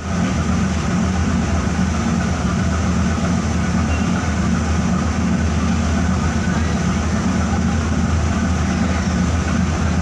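A passenger ship's engines running with a steady low drone, under an even rushing noise on the open deck.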